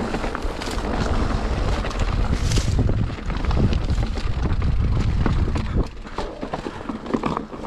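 Wind buffeting the microphone of a mountain-bike camera, over the bike rattling and knocking as it rolls down the trail. The wind rumble drops about six seconds in, leaving scattered clicks and knocks.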